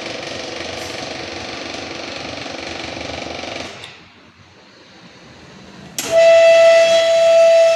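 Radial drilling machine running with a steady mechanical hum, then winding down a little over halfway through. Near the end a loud, steady, whistle-like tone starts abruptly.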